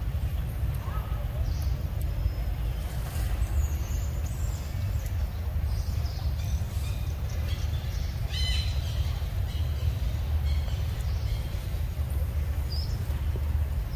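Outdoor forest ambience: a steady low rumble with faint bird chirps above it, and one brief high-pitched bird call about eight seconds in.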